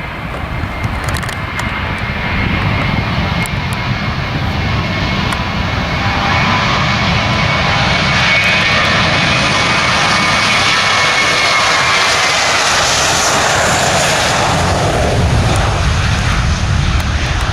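Airbus A320-232's IAE V2500 turbofan engines at takeoff power, a jet roar with a high fan whine that grows louder over the first few seconds. The whine drops slightly in pitch about two-thirds of the way through as the aircraft passes.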